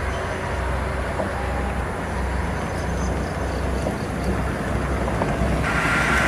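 Steady highway traffic noise from buses and trucks passing on a toll road, a low rumble that turns louder and hissier near the end.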